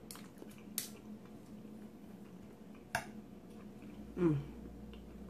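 Quiet eating at the table: a few light clicks of a knife and fork against a plate, then a short hummed vocal sound about four seconds in that falls in pitch.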